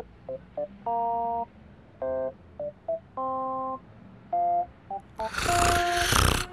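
A series of electronic beeping tones at different pitches, some short and some held about half a second, spaced like a little tune. Near the end a loud rushing whoosh of noise comes in with a steady tone under it.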